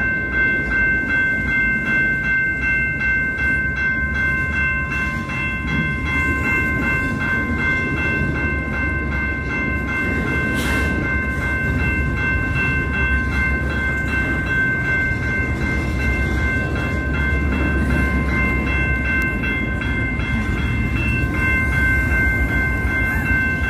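Level-crossing warning bell ringing steadily as a string of lit passenger and baggage cars of the CP Holiday Train rolls slowly past the crossing, with a low, continuous rumble of the train's wheels on the rails.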